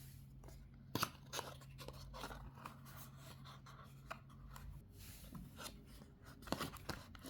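Faint handling noises from a small cardboard charger box being opened: scattered clicks, scrapes and crinkly rustles as the packaging is pulled apart and the contents taken out.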